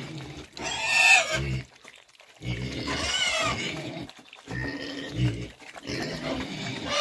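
A group of young pigs squealing and grunting in short bursts as they crowd and jostle at a feeding trough.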